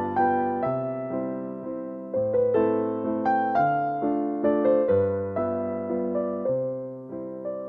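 Background music: a slow piano melody over sustained bass notes, each note struck and fading.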